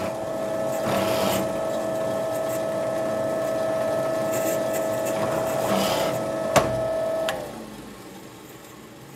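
Electric drill running with a metal-cutting countersink bit, cutting the cone for a screw head into plywood: a steady motor whine with louder bursts as the bit cuts, about a second in and again near six seconds. A sharp click just before the motor winds down and stops about seven seconds in.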